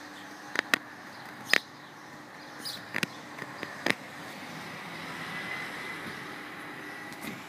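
Outdoor background of a steady low hiss with several short, sharp chirps or clicks scattered through it, and a faint hum that swells and fades a little after the middle. No thunder is heard.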